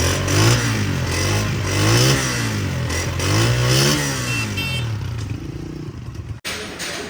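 Honda CG125 motorcycle's single-cylinder four-stroke engine being revved up and down several times, with three main blips, then dropping back toward idle near the end. The sound cuts out briefly for an instant shortly before the end.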